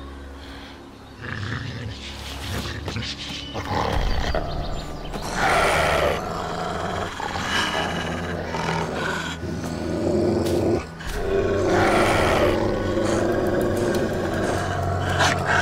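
A wolf snarling and growling with its teeth bared, in a run of loud, rough bursts that start about a second in and break off briefly near the end.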